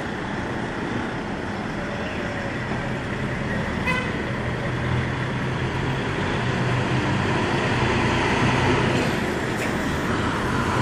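Steady low hum of a cruise ship's machinery under a constant rushing noise. The hum grows stronger from about four seconds in.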